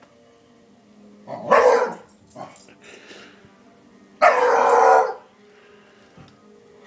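Two dog barks about three seconds apart, the second one longer and held, over a faint steady hum.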